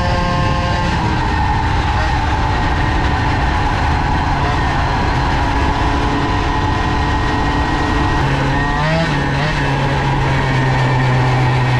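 Polini-kitted moped engine running under way at speed. About eight seconds in, a strong steady engine note comes in and holds.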